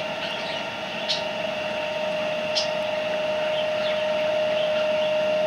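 Steady hum of a small electric motor with a high whine, and two sharp clicks, about a second in and again about two and a half seconds in.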